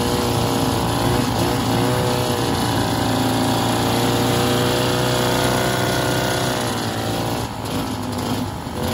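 Vintage Ski-Doo snowmobile's two-stroke engine running at a steady speed while riding, its pitch dipping and the sound easing off a little near the end as the throttle comes back.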